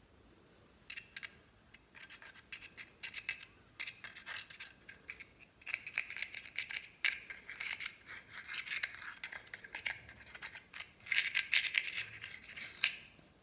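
Small metal spatula scraping and gouging pressed powder makeup out of its compact, a dry rapid scratching that starts about a second in and grows louder near the end.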